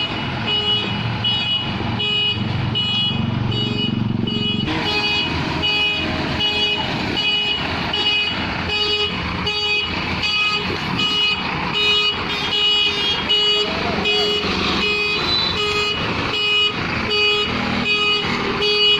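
JCB 3DX backhoe loader's reversing alarm beeping steadily, about twice a second, over its diesel engine running.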